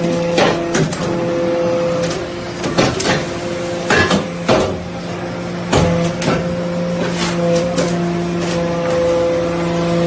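Hydraulic briquetting press for iron chips running: a steady hum from its hydraulic power unit, broken by about ten irregular metallic clanks and knocks.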